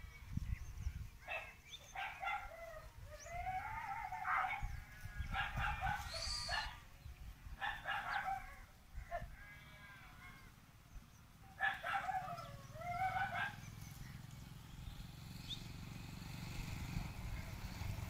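A series of drawn-out animal calls from farm animals, about half a dozen, rising and falling in pitch, each a second or two long, the last one a little past the middle. Under them runs a low rumble.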